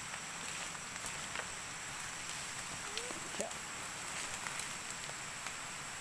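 Dry brush and leaves crackling and twigs snapping under footsteps as someone pushes through dense jungle undergrowth, scattered clicks over a steady high background hiss.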